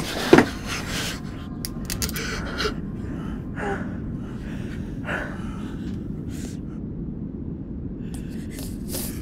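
A woman gasping and sobbing in short, ragged breaths, heard every second or so. Under it runs a low, steady rumble, and a loud, sudden burst sounds right at the start.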